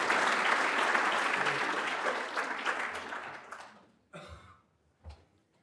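Audience applause, fading away about four seconds in, followed by a short rustle and a soft thump.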